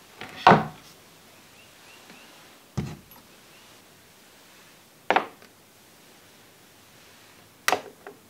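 Four separate short knocks, about two and a half seconds apart, as small parts or tools are handled and set down while a model engine is being assembled.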